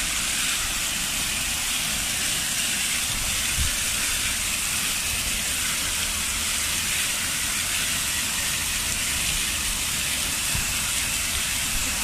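Fountain jets shooting up and splashing back into the basin: a steady rushing, hissing spray of falling water.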